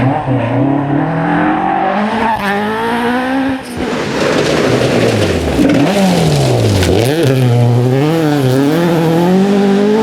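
Rally car engine driven hard on a forest stage, its revs repeatedly climbing and dropping through gear changes and braking. About four seconds in, the sound cuts to another car with a rush of tyre noise, then its revs fall away and climb again.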